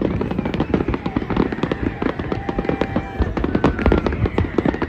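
New Year's fireworks: a dense, continuous barrage of bangs and crackles going off many times a second, with a few thin whistling tones among them.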